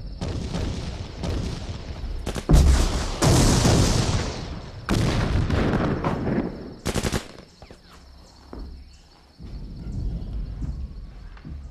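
Battle sound effects: repeated bursts of rapid gunfire, with a heavy blast about two and a half seconds in. The firing dies down to quieter bursts after about seven seconds.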